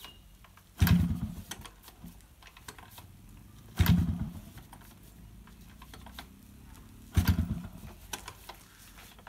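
Yamaha RX100 two-stroke single being kick-started three times, about three seconds apart. Each kick is a clack followed by a short burst of the engine turning over, which fades without the engine catching. This is a failing cold start, which the owner puts down to the bike standing in rain all night.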